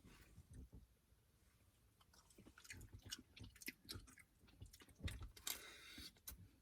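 Faint close-up chewing and biting while eating crab and seafood, with scattered small wet clicks and crackles.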